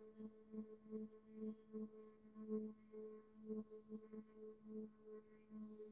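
Closed-lip human humming held on one steady low pitch during a long out-breath. It is faint and comes and goes in short pulses, as if heard through a video call.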